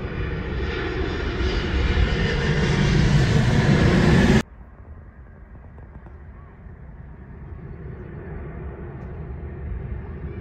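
Jet engine noise of a twin-engine jetliner passing low overhead on final approach, building steadily louder, then cut off abruptly about four seconds in. After that comes a much fainter jet sound from a second airliner on approach farther off, slowly growing louder.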